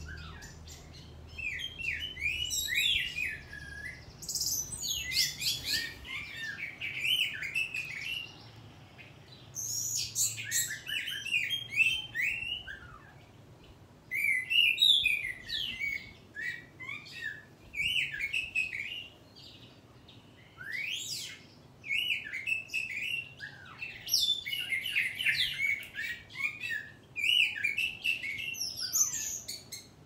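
Caged orange-headed thrush (punglor) singing: phrases of quick, varied notes a couple of seconds long, repeated about every three to four seconds with short pauses between them.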